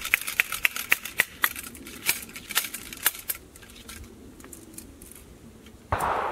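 Ramrod of an original military flintlock rifle tapping in the bore as a patched ball is rammed down: about four sharp, ringing clicks a second that stop about three seconds in. Near the end comes a short rushing noise.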